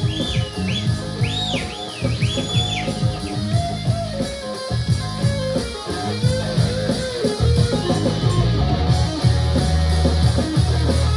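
Live rock band playing an instrumental passage led by electric guitar over bass and drums, with a run of high bending notes in the first few seconds.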